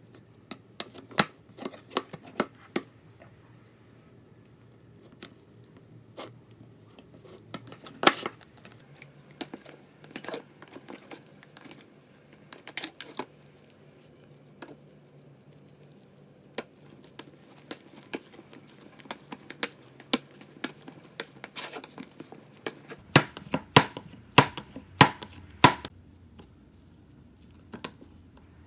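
Kitchen handling sounds from bread-making: scattered light clicks and taps of tools and containers, with a run of sharper taps a little before the end.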